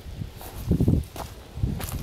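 Footsteps crunching over dry corn stubble and loose soil, a few irregular steps with a couple of sharp crackles of snapping stalks.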